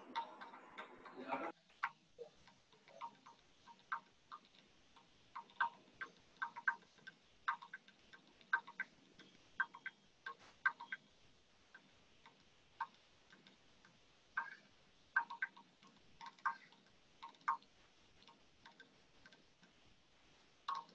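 Faint, irregular ticks and clicks, roughly one to three a second and unevenly spaced, over quiet room tone. A louder sound stops abruptly about a second and a half in.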